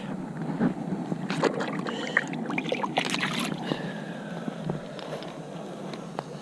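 Water splashing and sloshing as hive equipment is rinsed off, with scattered knocks and clinks of handling.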